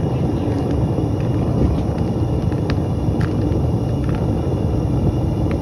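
Steady low roar of a metal-melting furnace burner, with a few faint crackles over it.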